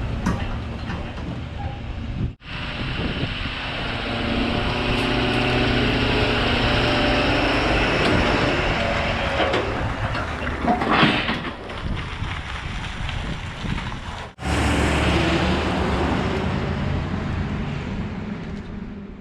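Heavy machinery running, in three clips cut together, fading out at the end.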